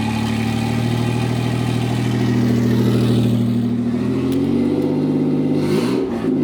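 Nissan VG30ET 3.0-litre turbocharged V6 running cold, just installed and on a stock ECU: a steady idle, then engine speed rising about four seconds in and wavering up and down near the end.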